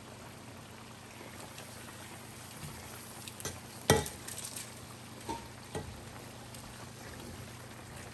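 Sauce sizzling faintly in a pan, with a few sharp clicks and knocks of kitchen utensils, the loudest about four seconds in.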